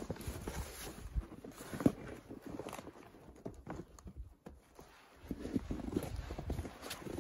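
A heavy canvas tent door flap is pulled aside and tied back, rustling, along with footsteps crunching in snow. There is a sharp knock at the start and another about two seconds in. The sound goes quieter in the middle, then the crunching steps pick up again near the end.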